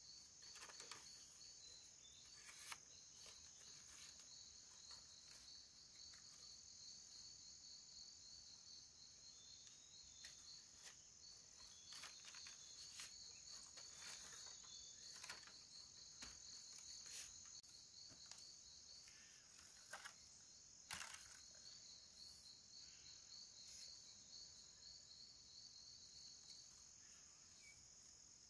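Faint high-pitched insects chirping in a steady pulsing trill, with scattered light clicks and snaps throughout.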